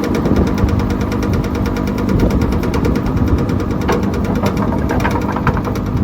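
Lindner T310 wood-waste shredder, driven by a 22 kW electric motor, running under load: a steady machine hum with a fast, even rattle from the vibrating feed chute. From about four seconds in, irregular sharp cracks come as material is broken up.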